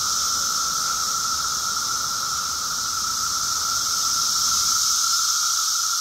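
Dense chorus of Brood X periodical cicadas in the tree canopy: a loud, unbroken buzzing din, a steady mid-pitched drone under a higher hiss, swelling slightly about two thirds of the way through.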